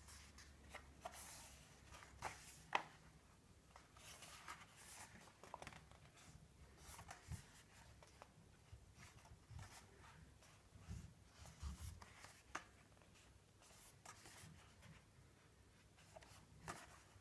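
Pages of a printed softcover book being turned by hand: quiet, irregular paper rustles and flicks, the sharpest about three seconds in.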